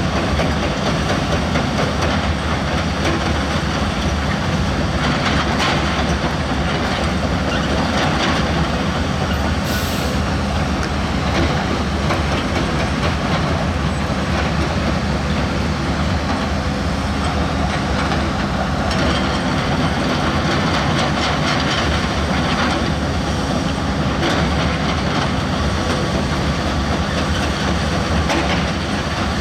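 Heavy diesel construction machine working, its engine running steadily under load, with a brief hiss about ten seconds in.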